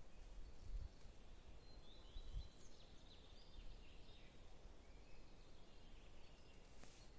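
Quiet forest ambience with faint bird calls: a few short high chirps and trills in the first half. There are also a couple of soft low bumps.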